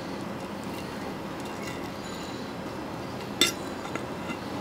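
Metal spoon and fork working against a ceramic plate while cutting grilled chicken, with one sharp clink about three and a half seconds in and a couple of faint ticks after it, over a steady low background noise.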